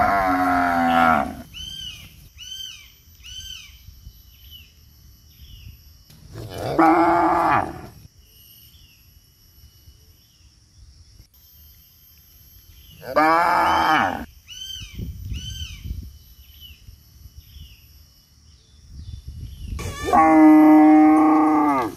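A cow mooing in long drawn-out calls, four in all, spaced about six seconds apart, with quiet between them.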